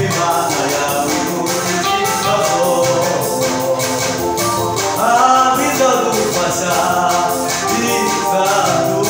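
A gospel praise song played on an electronic keyboard, with a fast, steady shaker-like beat, and a man singing along.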